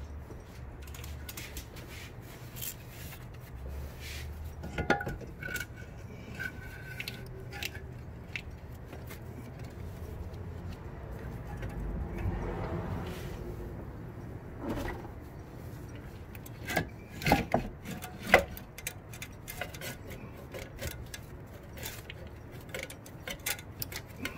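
Scattered metallic clinks and knocks as tools and the exhaust front pipe are worked on under the truck, with a few sharper knocks about two-thirds of the way through.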